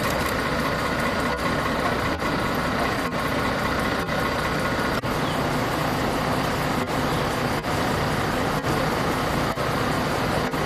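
Steady running of an idling motor vehicle engine, a large vehicle such as a bus or truck, with a constant drone and no change in pitch.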